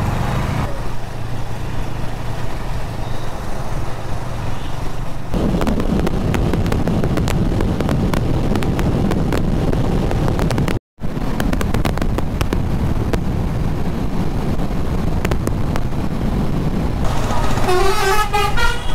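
On-the-road riding noise from a KTM Duke 390 motorcycle: its single-cylinder engine runs at steady cruising speed under a low rush of wind and road noise, with vehicle horns tooting in traffic. The sound cuts out for a split second about halfway through.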